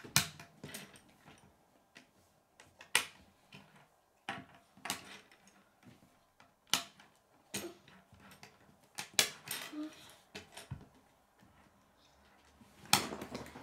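K'nex plastic rods and connectors clicking and clattering as pieces are handled, snapped together and set down on a wooden table: irregular sharp clicks, a few of them louder snaps.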